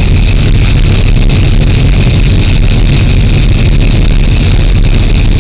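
Diesel locomotive running steadily as the train travels along the track, heard from the driver's cab: a loud, even engine drone with a constant hiss over it.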